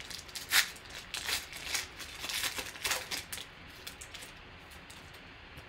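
Foil wrapper of a trading-card pack crinkling as it is torn open and the cards are pulled out: a run of sharp crackles that stops about three and a half seconds in.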